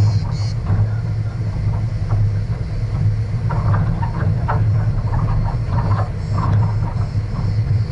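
Vehicle driving along a gravel dirt road: a steady low rumble from the engine and tyres, with scattered clicks and rattles that are busiest in the second half.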